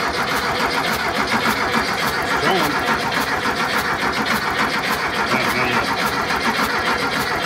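Volkswagen air-cooled flat-four engine being cranked by its starter motor for about seven seconds with the throttle wide open, turning over in even pulses without catching, then stopping abruptly. It does not fire because the ignition turns out to have no power.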